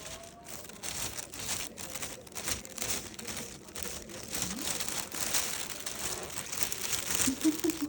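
Thin plastic bag crinkling in quick, irregular crackles as a cat licks at it.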